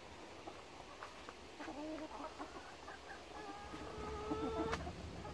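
A flock of hens clucking and calling around their feed, several voices overlapping, with one longer held call about three and a half seconds in.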